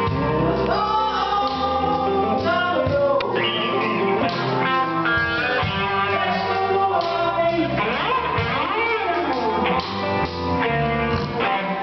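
Live blues band playing, with an electric guitar up front and a man singing.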